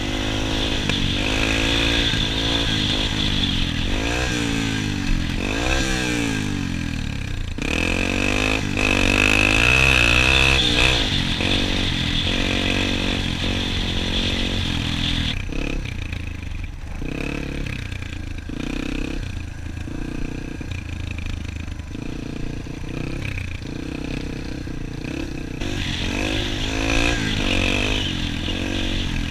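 Dirt bike engine, close up from the rider's own bike, revving up and down repeatedly as it is ridden through the gears, easing to a steadier, quieter run for a stretch past the middle, then revving again near the end.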